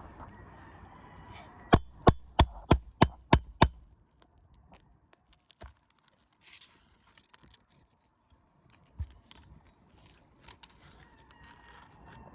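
A hammer striking a metal roofing tool, seven sharp strikes at about three a second, used to work a shingle tab loose and reach the nails. After that come faint scrapes and small clicks, with one dull thud about nine seconds in.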